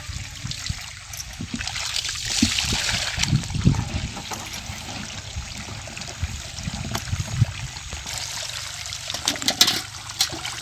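Water pouring from a tubewell's pipe outlet into a plastic bucket as it fills, with a few sharp clicks and knocks near the end.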